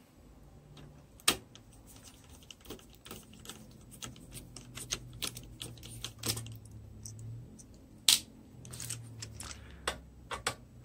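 Screwdriver taking the screws out of a sheet-metal equipment case: a run of small clicks, ticks and scrapes of the tool and screws on the metal, with two sharper clacks, one about a second in and one about eight seconds in.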